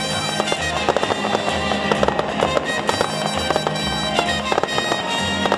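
Aerial fireworks bursting, with a dense run of irregular bangs and crackles from about half a second in until near the end, over music playing.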